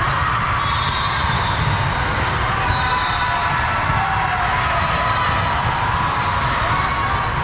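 Steady din of a large sports hall during volleyball play: crowd chatter and noise, with short sharp smacks of balls being hit and bouncing scattered through it.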